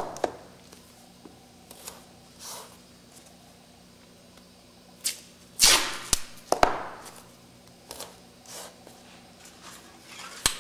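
Masking tape being pulled off the roll, torn into short strips and pressed down onto a painted wooden boomerang: a few short rasps and scattered sharp clicks, the loudest a little past the middle.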